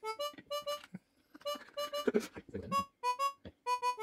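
Background music: a light tune of short, quick notes in a reedy, harmonica-like tone, with a brief patch of fainter noise underneath about halfway through.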